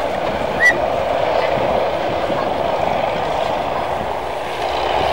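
Junkers Ju 52 trimotor's three radial engines running steadily as the plane taxis. A short high chirp cuts in about a second in.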